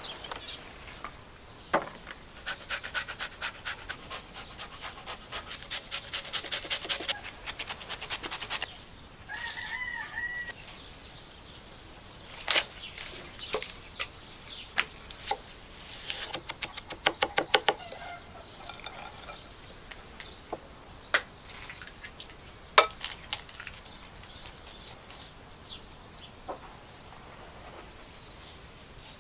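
Food-preparation sounds on a wooden board: a long run of rapid, even strokes, then knife strikes chopping, some spaced and some fast, then a few single knocks. A chicken calls briefly about ten seconds in.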